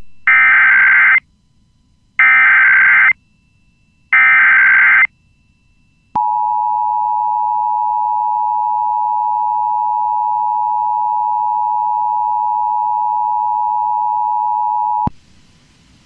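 Emergency Alert System activation on a radio stream, here a Child Abduction Emergency (Amber Alert). It opens with three one-second screeching bursts of SAME digital header data, about a second apart. Then comes the two-tone EAS attention signal, a steady beep held for about nine seconds before cutting off.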